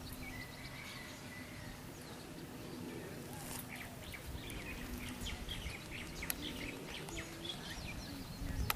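Small birds chirping in quick short notes, busiest in the second half, over steady faint outdoor background noise.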